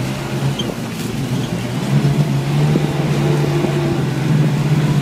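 An ATV's engine running while the vehicle drives, a steady drone that grows louder about two seconds in, over wind noise with a few knocks from the ride.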